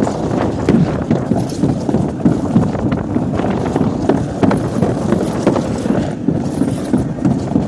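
Alpine slide sled running fast down the track: a steady rumble of the sled on the chute with frequent knocks and clatters.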